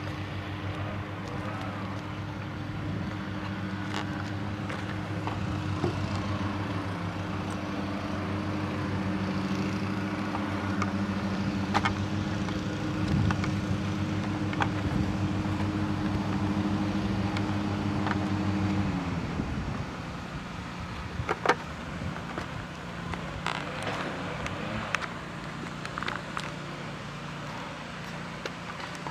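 A nearby engine or motor holds a steady hum, then winds down and stops about nineteen seconds in. Scattered light clicks and taps come from plastic helmet parts being handled.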